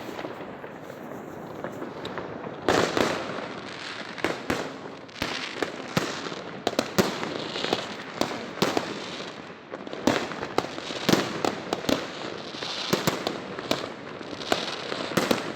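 Fireworks going off: an irregular string of sharp bangs and pops over a continuous crackle, with the loudest bangs about three, six and eleven seconds in.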